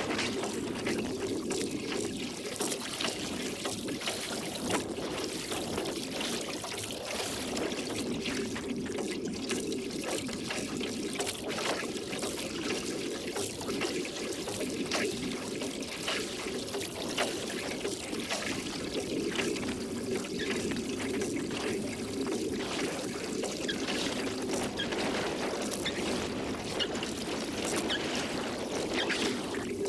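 Water trickling and splashing around a rowboat being rowed, a steady run of small irregular splashes and drips from the oars and hull.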